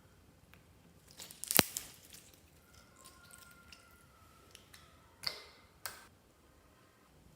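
Clear slime being mixed by hand: scattered sharp clicks and short squelchy pops. The loudest click comes about a second and a half in, and there are two more, near five and six seconds.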